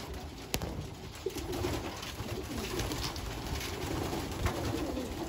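A loft full of racing pigeons cooing, with several birds' low, wavering coos overlapping throughout, and a few sharp clicks among them.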